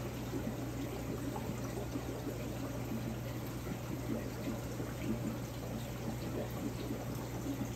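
Water pouring and splashing steadily in a large overflow aquarium system, over a constant low hum from the circulation pump.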